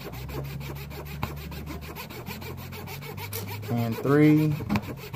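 Metal outliner blade being filed on a blade modifier: quick, even back-and-forth rasping strokes as a bevel is ground onto the blade's edge.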